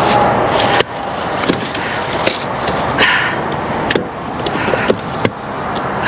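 Plastic drink bottles being grabbed and knocking together in a dumpster, with a metal reacher-grabber scraping among them and plastic trash bags rustling; several sharp knocks over a steady rustle.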